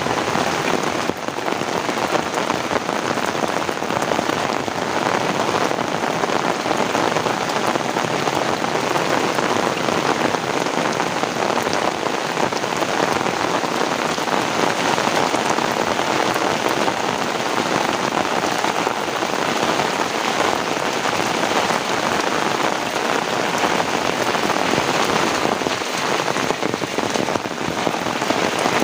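Heavy rain falling steadily, a dense, even patter with no break or change.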